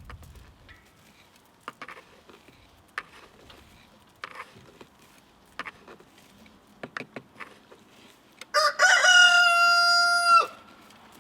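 A rooster crows once near the end, a single call of about two seconds that rises at its start and then holds level. Faint scattered clicks and taps come before it.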